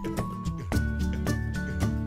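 Background music with a steady beat and a melody of held notes.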